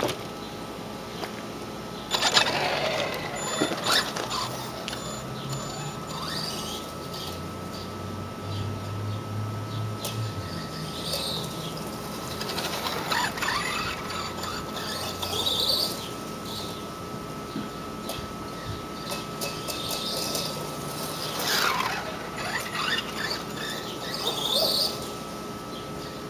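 Tamiya TLT-1 Rockbuster radio-controlled monster truck's electric motor and gears whining, rising and falling in several surges as it is driven.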